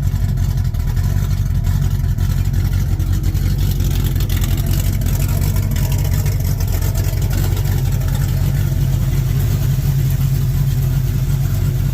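Chevrolet small-block V8 of a 1967 El Camino running steadily. It runs clean with no misfire, now that the valves are adjusted and the ignition renewed.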